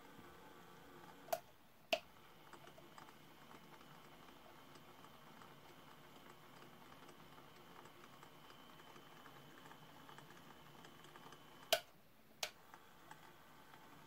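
Toy Miele washing machine running a wash: a faint steady whir of its small drum motor with light ticking, broken by two pairs of sharp clicks, one pair about a second in and another near the end.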